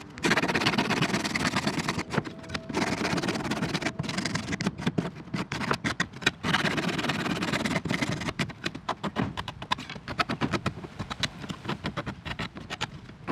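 Hand file rasping back and forth over the freshly cut plastic edges of a centre console, in quick repeated strokes that come faster in the second half.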